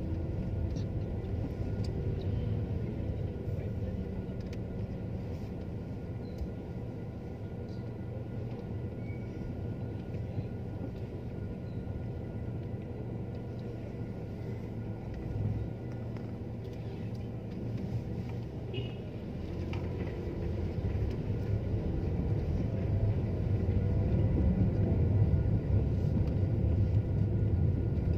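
Steady low rumble of a car's engine and tyres heard from inside the cabin while driving slowly, growing louder near the end.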